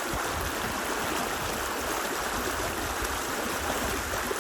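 Steady rush of a river's flowing water, the river running slightly high.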